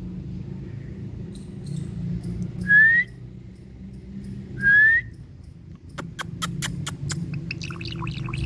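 Indian ringneck parakeet giving two short rising whistles about two seconds apart, then a quick run of sharp clicks and soft chatter near the end, over a steady low hum.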